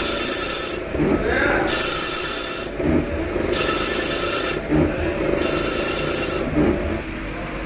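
CNC lathe thread-cutting a submersible pump part: four repeated cutting passes, each about a second of high-pitched, ringing cutting noise, with a short knock between passes. There is about one pass every 1.8 seconds, and the cutting stops near the end.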